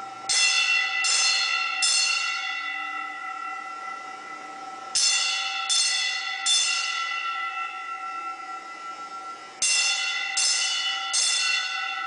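Old school fire alarm bells striking single strokes in a repeating pattern of three, about three-quarters of a second apart, with a pause of a few seconds between groups. Each stroke rings on and dies away slowly in the large hard-walled gymnasium.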